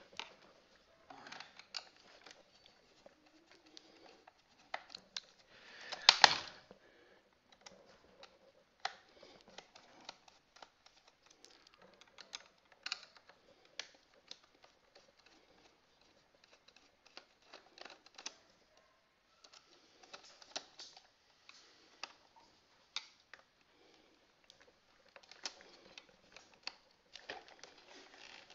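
Scattered clicks and small knocks of hard plastic as a Roboscooper toy robot is handled and turned over by hand to get at its battery compartment, with one louder knock about six seconds in.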